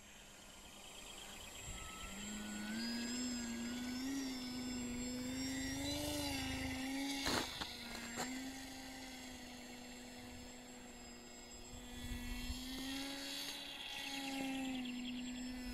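Motor and propeller of a Revolver 2 RC model autogyro in flight: a steady droning whine whose pitch wavers up and down with the throttle. It grows louder over the first couple of seconds. Two sharp clicks come about seven and eight seconds in.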